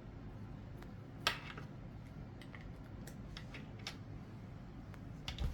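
Small clicks from magnetic charging-cable connectors being handled and snapped together: one sharper click about a second in, then a few fainter ticks and a soft knock near the end.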